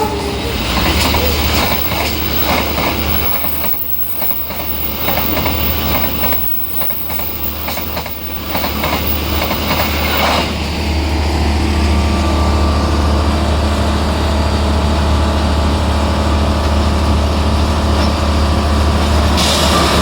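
Heavy diesel engine of a Plasser & Theurer rail track-lifting machine running steadily. For about the first ten seconds a run of regular clacks and knocks sounds over it; after that only the engine runs on.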